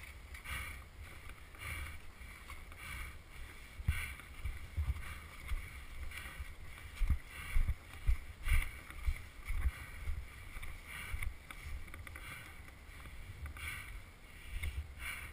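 Footsteps crunching through snow at an even walking pace, about one and a half steps a second, with low knocks and bumps from gear. The knocks are loudest a little past the middle.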